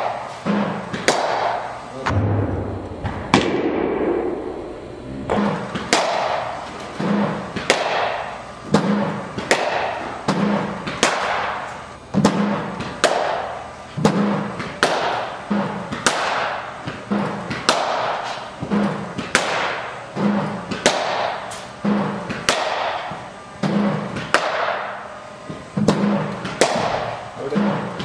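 Cricket bat striking yellow practice balls over and over in an indoor net hall: a sharp crack with an echoing tail and a low thump, roughly every two seconds, with a short break about two to five seconds in.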